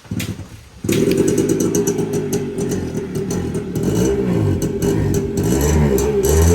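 Suzuki Samurai two-stroke motorcycle engine starting about a second in, then running with the throttle blipped up and down.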